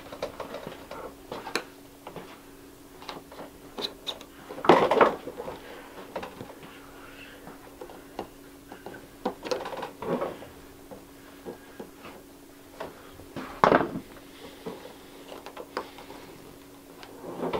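A knife cutting and scraping at a small wrapped package, with scattered clicks, scrapes and crinkles of the wrapping as it is handled and peeled; a few louder rustles come about five, ten and fourteen seconds in. A faint steady hum sits underneath.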